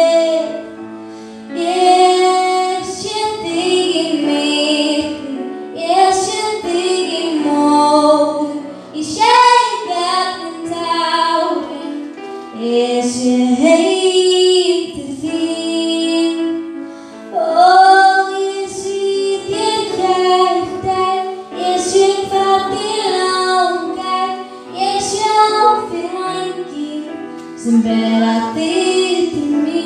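A girl singing a song into a microphone, with grand piano accompaniment beneath her voice.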